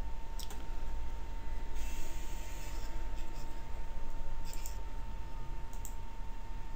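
A few computer mouse clicks: one about half a second in and two near the end, over a steady low hum and a faint constant high tone.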